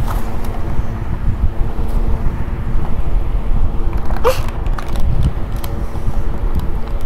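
Steady low rumble and hum from an air cooler's fan blowing past a clip-on microphone, with small rustles and clicks as a wrapping is pulled off a packaged toy kitchen set. A brief rising squeak about four seconds in.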